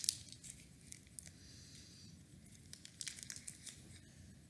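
Faint crinkling of a Reese's peanut butter cup wrapper being handled and torn open, in short bursts at the start and again about three seconds in.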